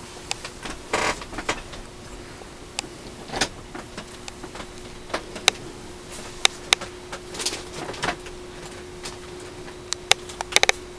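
A person moving about on a bed: short rustles of bedding and scattered clicks, coming in irregular bursts over a steady faint hum.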